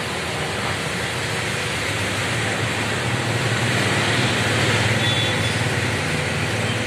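Steady engine-like drone with a low hum, swelling slightly a little past the middle; the engine on show is not the source, as its fan is still.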